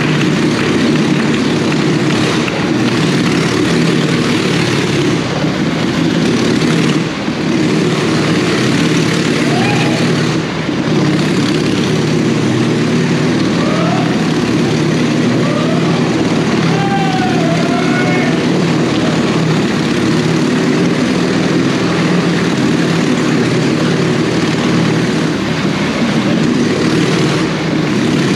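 Motorcycle engine running loud and steady at an even pitch as the bike circles the vertical wooden wall of a wall of death.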